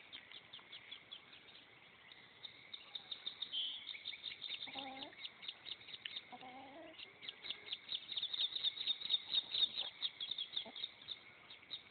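A group of ducklings peeping: rapid runs of short, high peeps that thicken a few seconds in and are loudest near the end.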